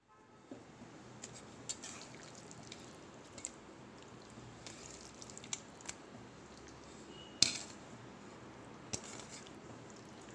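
Raw mutton pieces handled and dropped into a glass bowl of yogurt and spice marinade: small wet knocks and clinks over a steady low hiss, with one sharp knock about seven seconds in.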